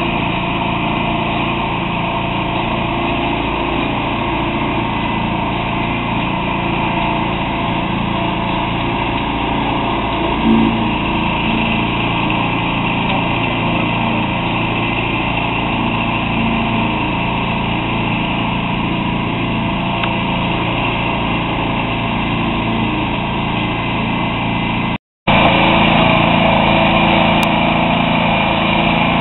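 Engine of a towable concrete mixer trailer running steadily as it turns the drum and concrete is discharged down the chute. The sound breaks off briefly near the end and picks up again a little louder.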